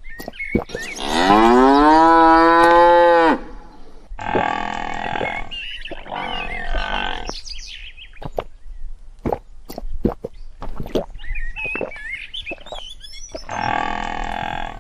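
Cattle mooing: one long, loud moo about a second in that rises in pitch and then holds, followed by more moos, with scattered sharp clicks between them.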